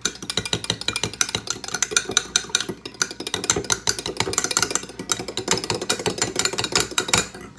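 Fork beating eggs in a glass bowl: rapid, steady clinking of metal on glass, several strokes a second, stopping abruptly at the end.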